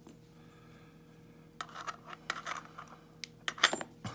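Small metallic clicks and taps of a key and small lock cylinder parts being handled. The clicks come in an irregular cluster starting about a second and a half in, the loudest near the end.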